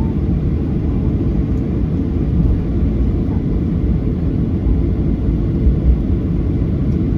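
Steady low rumble inside the cabin of a Boeing 737-800: noise from its CFM56-7B engines and the airframe, holding an even level with no sudden change.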